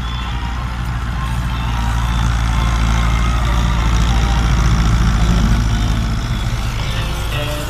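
Diesel tractor engine running as it pulls a rear levelling blade through loose soil, a steady low hum that grows louder as it passes close and then eases off.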